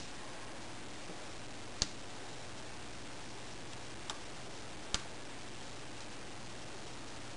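Four sharp, light clicks spaced unevenly over about five seconds, over a steady hiss: a small metal pick tool working against the plastic screen bezel of a laptop to pry out its rubber corner bumpers.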